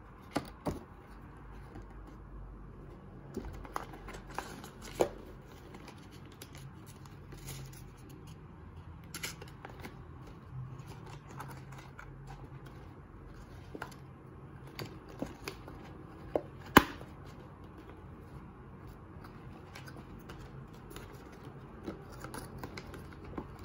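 Cardboard box flaps and card inserts being opened, folded and slid by hand: light rustling and scraping with scattered sharp taps and clicks of card, a few louder snaps among them.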